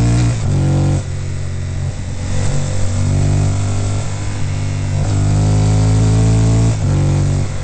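Honda VTR1000F Firestorm's 996 cc 90-degree V-twin through a Staintune exhaust, pulling hard through bends with the pitch climbing under throttle. The throttle closes and the note drops about a second in, then it pulls again and backs off once more near the end.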